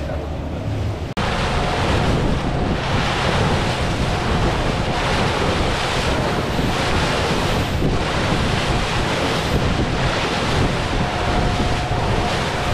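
Wind buffeting the microphone over the rush of water, as on the deck of a moving cruise boat. It jumps suddenly louder about a second in.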